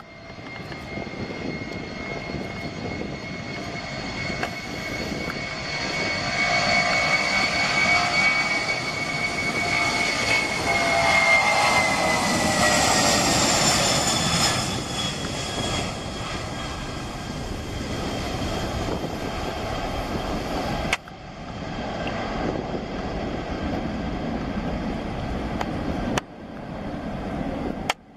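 Boeing 747-400 freighter's four turbofan engines at takeoff thrust during the takeoff roll and climb-out: a whine over a rumble that grows loud as the jet passes, the whine dropping in pitch about twelve to fourteen seconds in, then a broader, fading jet noise as it climbs away. The sound cuts off abruptly twice near the end.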